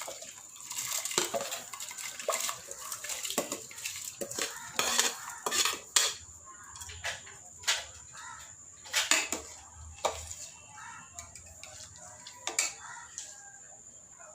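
A metal spoon knocking and scraping against a cooking pot in irregular clinks as basmati rice is stirred into boiling water.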